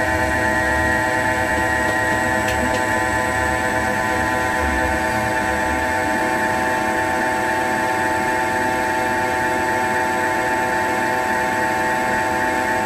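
CNC turning lathe running through a finish cut on a metal workpiece: a steady whine of several tones over a low hum from the spindle and drives.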